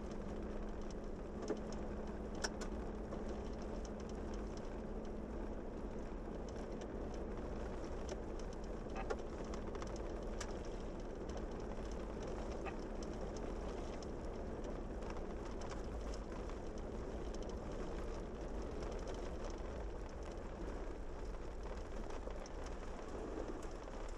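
Steady rumble of a Jeep driving on a gravel road, heard from inside the cabin, with scattered small ticks and a few sharper clicks in the first ten seconds.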